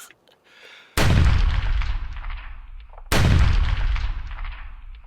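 Two deep booming hits about two seconds apart, each starting suddenly and trailing off in a long fading rumble, like the impact sound effects laid over a video intro.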